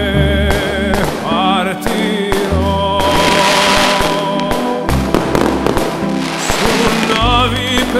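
Fireworks rockets hissing up about three seconds in, then bursting and crackling with many sharp pops through the second half, under a loud Italian pop song with a sung vocal.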